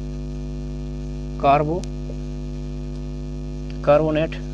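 Steady electrical mains hum, a loud, even buzz made of a stack of steady tones, running under the recording. Two short vocal sounds break through it, about a second and a half and four seconds in.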